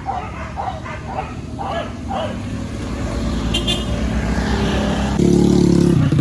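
A hunting dog yelping about five times in the first two and a half seconds over a steady engine hum. The engine grows louder and stronger from about five seconds in.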